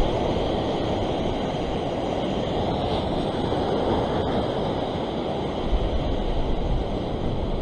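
Ocean surf breaking and washing over rock ledges: a steady rush of churning white water.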